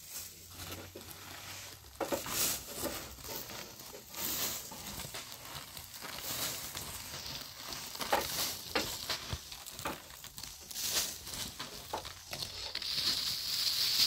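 Clear plastic bag crinkling, and grain rustling as it is scooped by hand from an open sack into the bag, in irregular bursts. Near the end there is a steadier high hiss.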